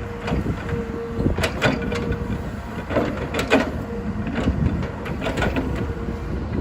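Hydraulic excavator working: a steady low engine rumble with a thin whine that comes and goes, and repeated sharp metallic clanks and squeaks.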